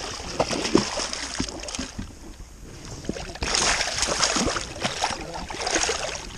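Hooked walleye thrashing and splashing at the water's surface as it is brought in, with a stronger stretch of splashing from about three and a half seconds in.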